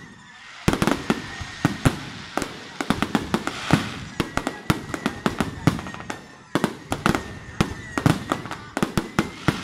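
Aerial fireworks display: after a brief lull, a rapid, irregular string of sharp bangs from shells bursting overhead, over a continuous hiss of rising and burning shells.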